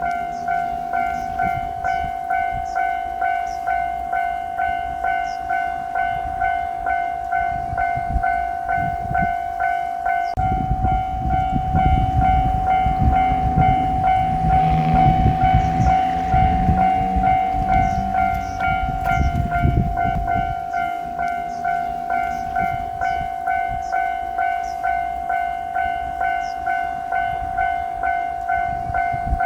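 Japanese level-crossing warning bell ringing steadily at about two rings a second, while a JR Freight train passes over the crossing for about ten seconds in the middle, its rumble swelling and then fading back to the bell alone.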